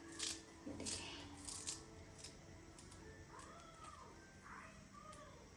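Faint sharp snips of fresh green coriander (cilantro) being cut, a few over the first two seconds or so.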